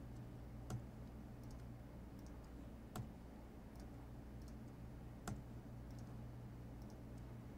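Three sharp clicks a little over two seconds apart, with a few fainter ticks between them, from a computer mouse and keyboard, over a steady low hum.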